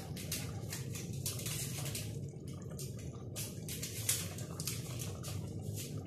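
Chicken adobo sauce bubbling in the pot on the stove, with quick irregular pops and crackles over a steady low hum.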